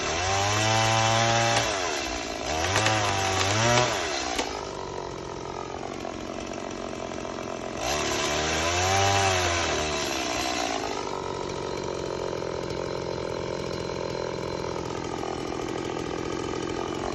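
Gas-powered chainsaw revving up and back down three times, at the start, a few seconds in, and about halfway, and running steadily at lower revs in between and toward the end.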